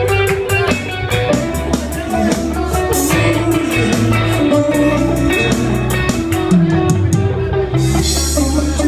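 Live band music led by an electric guitar, over a steady beat and a low bass line, with a brighter crash of high sound about eight seconds in.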